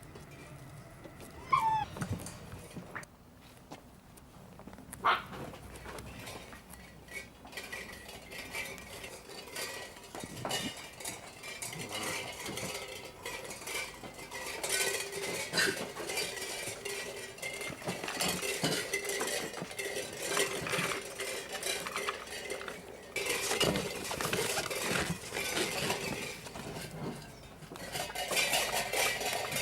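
Leonberger puppies making a racket: a short squeal about a second and a half in, then a growing clatter of quick clicks and knocks that gets dense about halfway through.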